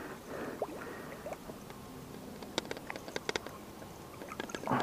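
Light splashing in shallow river water as a foul-hooked white sucker thrashes at the surface and is grabbed by hand. This is followed by a scattered series of sharp little clicks and ticks.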